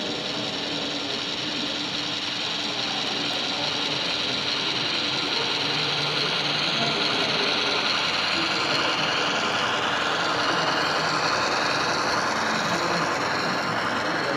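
Mechanical running noise of an HO scale model diesel locomotive and its cars on the track, a dense gear-and-wheel whir that grows louder as the train comes closer.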